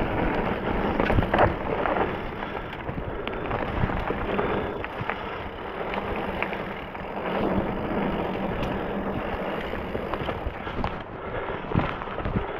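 Specialized Stumpjumper mountain bike rolling over a dirt trail of rocks and roots: continuous tyre noise with scattered rattles and knocks from the bike.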